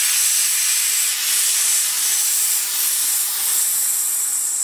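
Steady hiss of compressed air escaping from the opened drain valve at the bottom of a Campbell Hausfeld twin-tank air compressor, releasing the tank's pressure.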